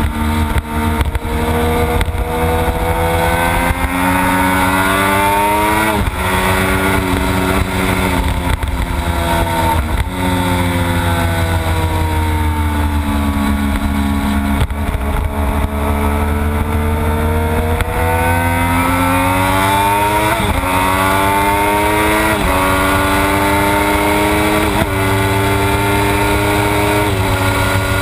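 Triumph Daytona 675's inline three-cylinder engine heard onboard at track speed, over wind noise. The revs climb with sharp upshifts around 6 and 10 seconds in, the note sinks through a slower corner in the middle, then climbs again through four quick upshifts in the last eight seconds.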